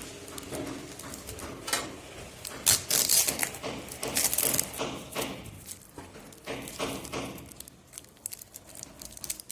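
Plant packaging being handled and pulled open: irregular rustling and crinkling with sharp clicks, loudest in bursts about three and four seconds in.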